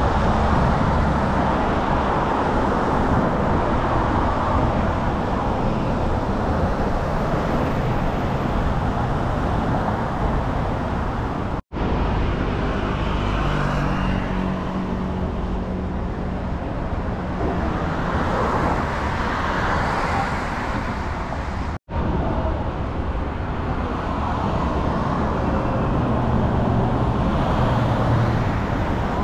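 Steady city road traffic noise of passing cars and buses, broken twice by a momentary gap of silence.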